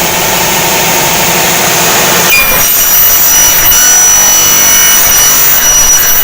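Double-head aluminium cutting saw with its 3 kW motors running, then about two seconds in the blades cut into a 2.2 mm aluminium profile, giving a steady high-pitched ringing that lasts to near the end.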